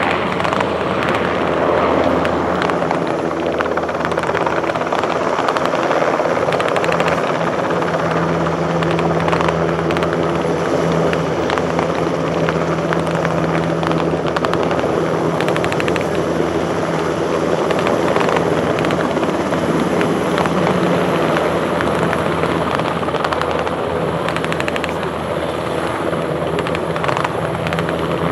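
NH90 military helicopter flying low: steady rotor and turbine noise with a constant low drone.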